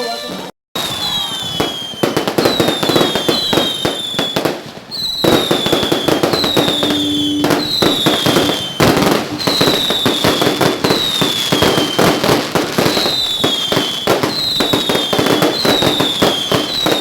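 Fireworks going off continuously: dense crackling and popping of bursts, with a falling whistle that recurs about once a second.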